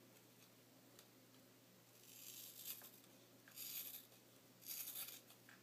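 Scissors cutting through a thick lock of long hair: three rasping cuts roughly a second apart, the first about two seconds in and the longest.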